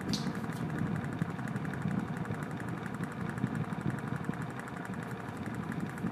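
A machine or motor running with a steady low rumble.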